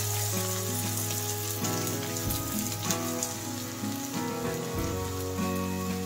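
Hot mustard oil sizzling and crackling in a kadai as chopped onions are dropped in, with background music playing.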